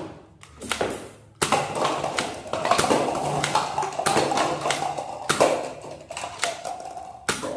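Plastic toy guns being handled and fired: a run of sharp clicks and taps over a steady mechanical whir.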